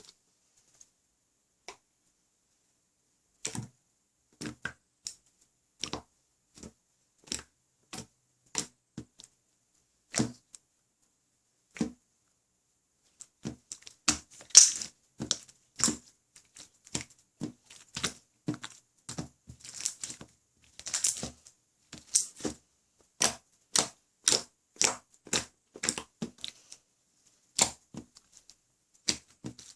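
Clear jiggly slime being pressed and squished by hand, giving short, sharp pops and crackles. They come singly about a second apart at first, then come faster and louder from about halfway.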